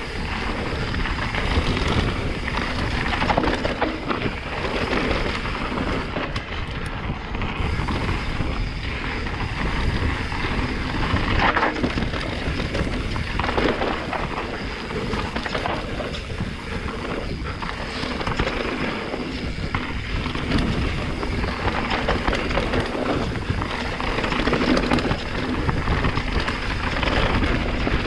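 Santa Cruz Megatower enduro mountain bike descending a rough trail at speed: tyres rolling over dirt and rock, with a constant clatter of chain, frame and suspension over the bumps and wind rushing on the helmet camera's microphone.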